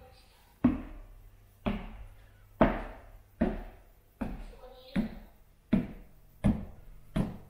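Footsteps on wooden stairs: nine steady footfalls a little under a second apart, each a dull thud.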